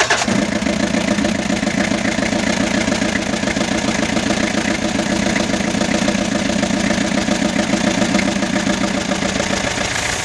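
Diesel engine with a mechanical injection pump running steadily at idle, its combustion beat even and regular.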